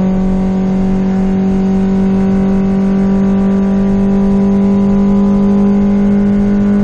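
VW Golf R32's 3.2 VR6 engine running at steady high revs, its pitch held level with no rise or fall.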